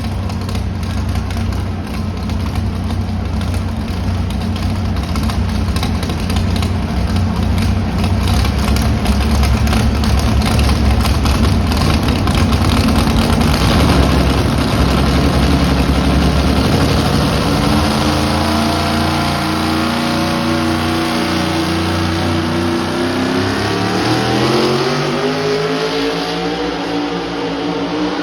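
Ford four-wheel-drive pulling truck's engine at full throttle under load during a truck pull. After about 18 s the sound thins to a clearer engine note that revs up and down, climbing near the end.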